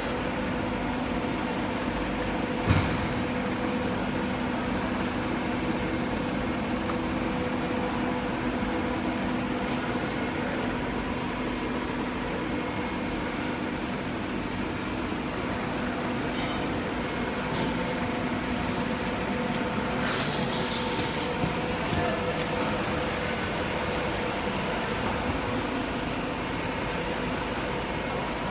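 Slitter-scorer for corrugated board running with a steady mechanical hum. A single sharp knock comes about three seconds in, and a short hiss about twenty seconds in.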